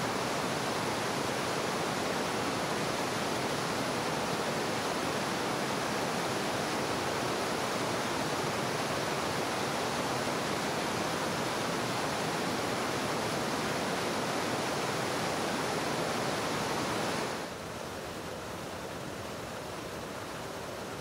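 Steady rush of a waterfall cascading over rock. Near the end it drops to a quieter, steady rush.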